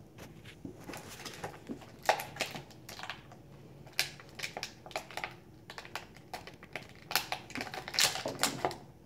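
Clear plastic blister tray of a toy multipack clicking and crinkling as small figures are worked out of their compartments by hand: irregular sharp taps in several quick clusters.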